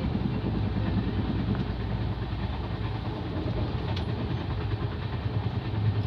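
Moving train heard from inside the coach: a steady low rumble of wheels on the track while crossing a bridge, with a single sharp click about four seconds in.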